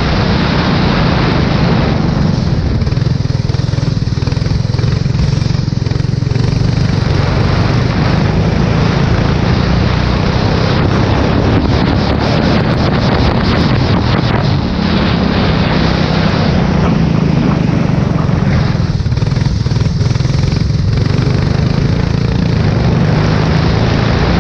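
Formula 4 race car engine running hard at speed on a wet track, its note shifting every few seconds through the lap, under a steady hiss of wind noise.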